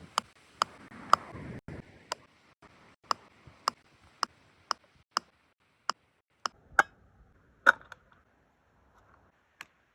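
A series of sharp clicks or light knocks, about fifteen at uneven spacing, roughly two a second. Two louder ones come about two thirds of the way in, and a last one near the end.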